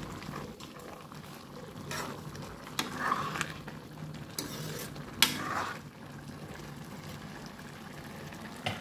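Steel ladle stirring a thick, wet curry of ash gourd and chicken in a steel kadai, knocking and scraping against the pan a few times, the loudest knock a little past the middle. A low steady hum runs underneath.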